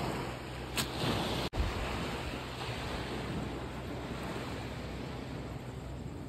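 Sea surf washing on the beach, an even rushing noise with wind buffeting the microphone; the sound briefly drops out about a second and a half in.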